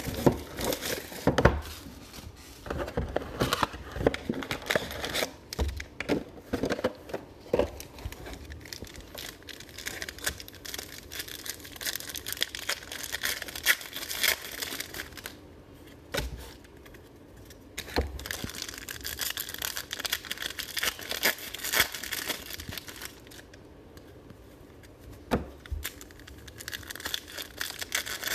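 Crinkling and tearing of the plastic wrapping on trading-card packs being opened by hand, a dense run of crackles with two quieter spells.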